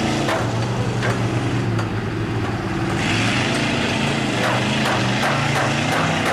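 Lifted square-body Blazer mud truck on tractor-tread tires ploughing through a mud pit. Its engine runs hard under load, the revs falling and rising, over the wash of mud and water thrown off the tires.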